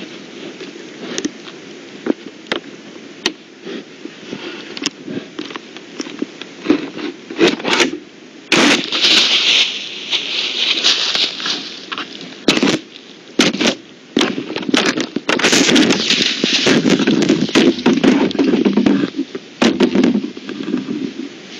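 Trail camera being pawed and knocked about by an animal, heard through its own microphone: scattered sharp knocks on the housing, with two long stretches of loud scraping and rustling, one about a third of the way in and one through most of the second half.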